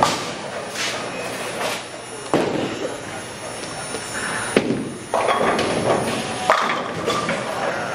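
Bowling alley din: four sharp knocks of balls and pins about two seconds apart, with a longer clatter of pins from about five seconds in.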